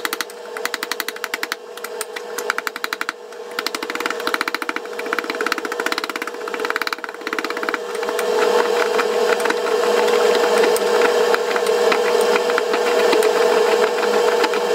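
A ceramic pestle crushes and grinds trichloroisocyanuric acid pool chlorine tablets in a ceramic mortar. Rapid, irregular crunching clicks become a steadier, continuous grinding after about eight seconds, as the chunks break down to powder. A steady hum runs underneath.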